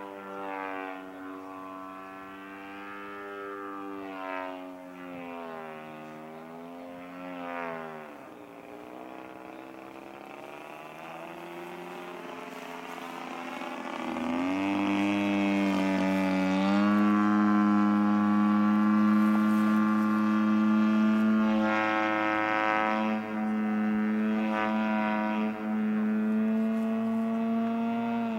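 Radio-controlled Extra 260 aerobatic model plane flying, its DLA 64 twin-cylinder two-stroke gasoline engine and propeller running. The pitch rises and falls, with a deep drop about eight seconds in. About halfway through it gets louder and holds a steadier, higher note as the plane comes closer.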